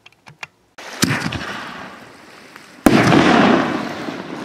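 5-inch canister aerial firework shells: a sharp thud about a second in, then a much louder, sharp bang near three seconds that trails off slowly.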